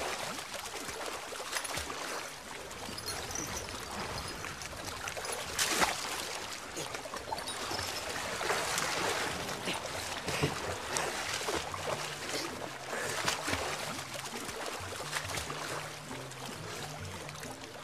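Water splashing and sloshing as several people swim and wade, with occasional sharper splashes. A low music melody comes in during the second half.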